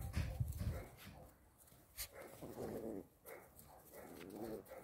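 Cane Corso puppy growling in rough play while wrestling a kitten, two rough growls in the second half. A low rumbling thump comes right at the start.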